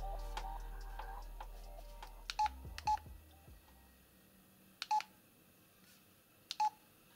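Samsung SGH-L760 mobile phone's keypad beeping as its buttons are pressed: four short beeps with a click, spread a second or two apart. The last of a ringtone dies away in the first few seconds.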